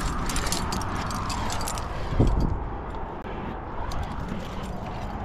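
Climbing gear on a harness, carabiners and metal protection, jingling and clinking as a climber moves up the rock, over a low rumble, with one louder dull thump about two seconds in.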